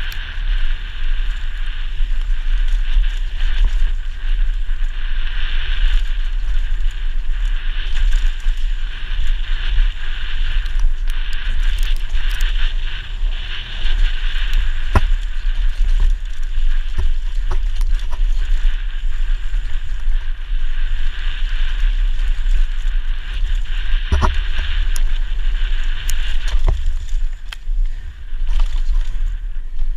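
Downhill mountain bike racing down a dirt forest trail, heard from a helmet camera: a steady rush of wind on the microphone and tyres on the dirt, with a few sharp knocks from the bike over bumps, the loudest about 24 seconds in.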